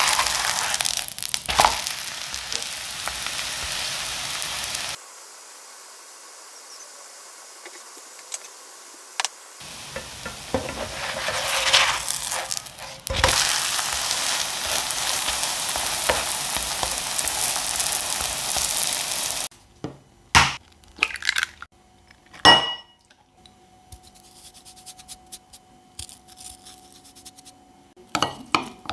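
Thin flour-and-cornflour batter crepe frying in oil in a nonstick pan, sizzling steadily, with a quieter stretch of sizzle in the middle. The sizzle cuts off about two-thirds of the way in. After it come a few sharp clinks and taps of a utensil against a glass measuring jug holding egg and sliced green onion.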